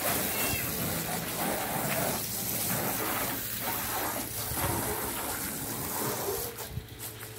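Water spraying hard from a garden hose nozzle onto a car's body and the gravel around it, a steady hiss of spray that grows fainter near the end.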